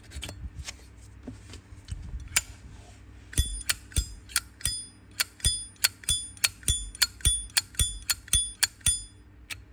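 Zippo lighter being worked by hand: a few scattered clicks, then from about a third of the way in a quick regular run of sharp, ringing metallic clicks, about three a second.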